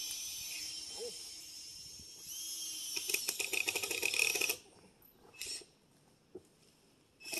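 Handheld cordless drill driving a screw into 2x4 framing lumber: the motor whines up, then rattles rapidly for about a second and a half, with a second short burst about a second later.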